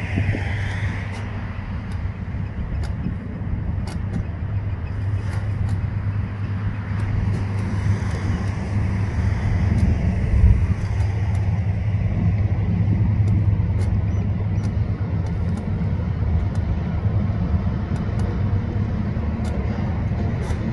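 TasRail TR class diesel-electric locomotives, TR13 leading, running with a steady low engine rumble as the freight train approaches slowly. There is a deeper thud about ten seconds in.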